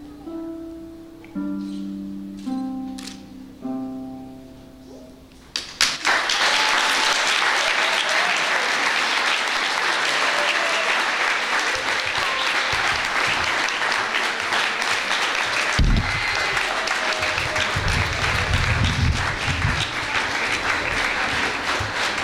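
Harp playing a few plucked notes and chords, each ringing and fading. About five and a half seconds in, applause breaks out, louder than the harp, and goes on steadily.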